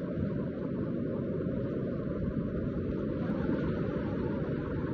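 Muddy flash-flood torrent rushing past, a steady deep roar of fast-moving water.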